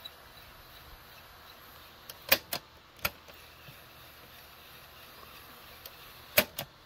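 Piano-key transport buttons on a Quasar GX3636 boombox's cassette deck clicking as they are pressed: a few sharp clicks about two seconds in and two more near the end, over a faint steady hiss.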